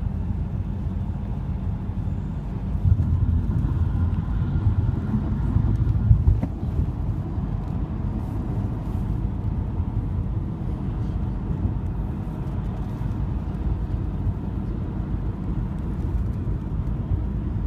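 Steady low road rumble inside a moving car's cabin, swelling a little about three seconds in.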